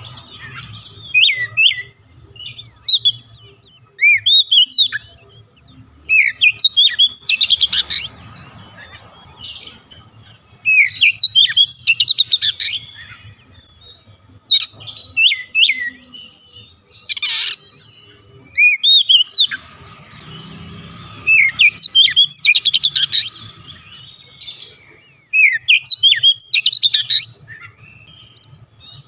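Oriental magpie-robin singing: loud phrases of rapid, varied whistles and chirps, each lasting a second or two, with short pauses between.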